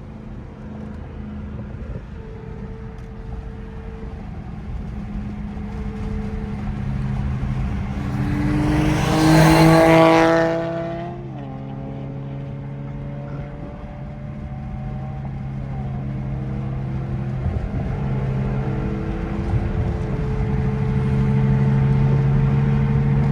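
Car engine accelerating through the gears: the engine note climbs and then drops at each shift, several times over. It is loudest about nine to ten seconds in.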